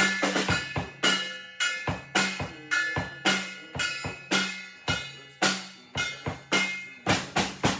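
A drum kit playing a steady beat of snare and bass drum hits, each hit ringing briefly. The hits come more quickly near the end, like a fill.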